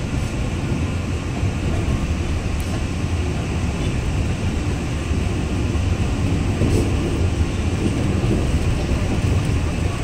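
Alishan Forest Railway narrow-gauge train heard from inside a passenger carriage: a steady low rumble of the running train on the track. It grows a little louder about halfway through, as the windows go dark in a tunnel.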